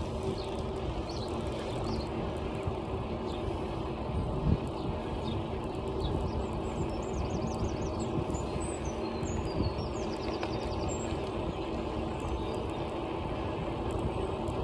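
Bicycle riding along a tarmac lane: steady wind and tyre rumble on the microphone. Small birds chirp and trill in the hedgerows around the middle.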